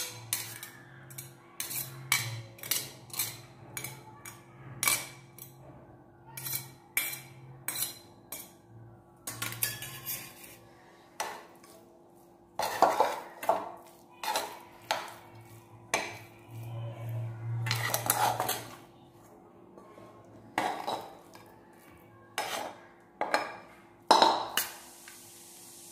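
Steel spoon scraping and clinking against a kadai and a steel plate as mango tempering is scooped out and mixed into rice: irregular metal clinks and scrapes, one or two a second, with a few louder clusters.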